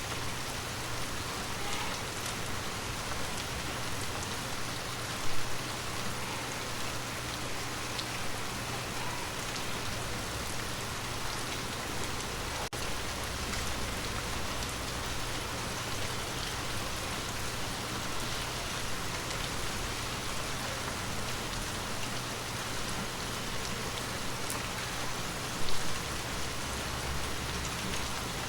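Water drops tapping on glass over a steady hiss of falling water, with two louder drop hits, one about five seconds in and one near the end.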